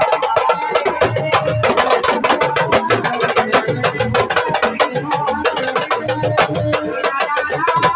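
Senegalese sabar drums played fast with stick and hand: a dense, unbroken run of sharp strokes, with steady pitched tones over them.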